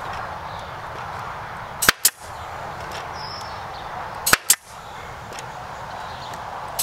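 Pneumatic stapler firing staples through wire mesh into a wooden frame. Each shot is a sharp double crack, about every two and a half seconds: twice, with a third at the very end.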